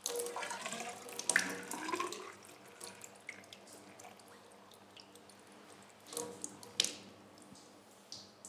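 Wort sample poured from a glass jug, splashing and gurgling with a pitch that rises as the vessel fills, dying away after about two and a half seconds. The sample is drawn for a hydrometer reading of the original gravity.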